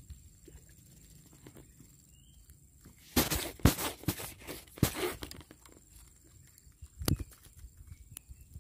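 Close handling noise: a cluster of loud rustles and knocks about three to five seconds in and another knock about seven seconds in, as a small freshly caught fish is held and unhooked by hand.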